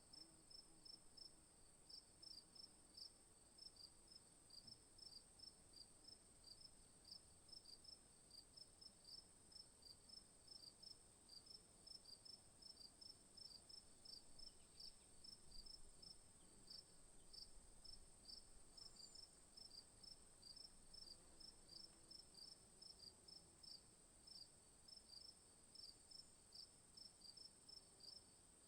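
Faint insect chorus: a steady high-pitched drone with short chirps repeating about three times a second.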